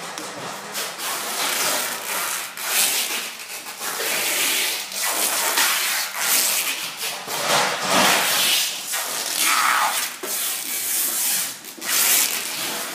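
Plastic CRT monitor cases being slid and shoved across a wooden pallet and against each other as they are stacked: an irregular run of rough scrapes and rubs.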